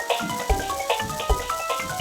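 Instrumental children's music: a mallet instrument such as marimba or xylophone playing a quick melody of short notes over a steady drum beat.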